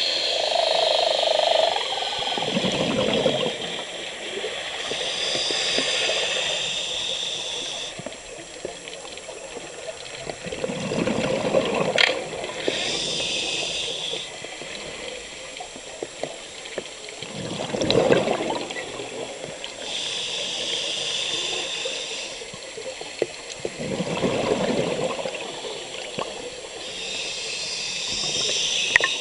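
Scuba diver breathing through a regulator underwater: a hissing inhale through the demand valve, then a rush of exhaled bubbles, the cycle repeating about every six to seven seconds.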